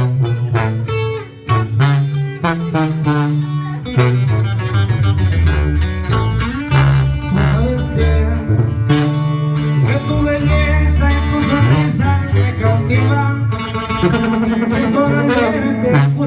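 Instrumental passage of a Spanish-language love song: plucked acoustic guitars over a tuba playing a sustained bass line.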